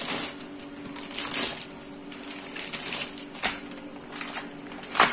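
Plastic bacon packaging crinkling and rustling as it is handled and cut with a cleaver, with a few sharp knocks, the loudest near the end.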